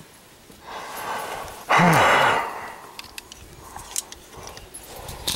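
A man's loud, breathy sigh about two seconds in, falling in pitch, then a few light clicks as snap ring pliers are worked in his hands.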